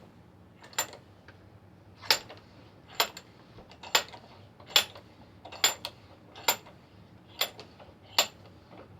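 Sharp metallic clicks, evenly spaced at about one a second, from the metal parts of a Stanley No. 700 wood vise being worked by hand.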